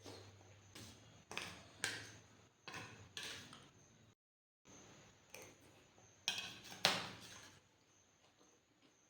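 Close-up chewing of papdi chaat, with a run of short, crisp crunches as the fried papdi wafers break between the teeth; there is a brief dropout to silence near the middle.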